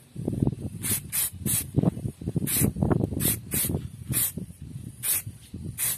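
Black Samurai Paint aerosol spray can giving a series of short hissing bursts, about nine in six seconds, as a thin, even coat goes onto the inside of a motorcycle headlight housing. Under the bursts runs a low, uneven rumble.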